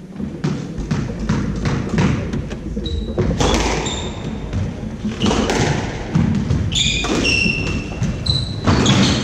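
Squash rally: the ball cracking off rackets and thudding against the court walls in quick succession, with sneakers squeaking on the wooden court floor.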